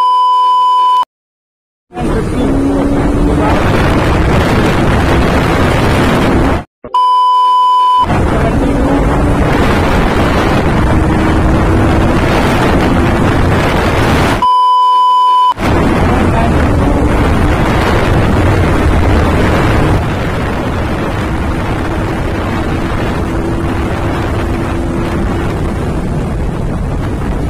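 KTM RC125's single-cylinder four-stroke engine accelerating hard, its pitch rising again and again as it pulls up through the gears, under heavy wind rush on the microphone. Three short, high, steady beep tones about seven seconds apart cut in over it, and the sound drops out for about a second after the first.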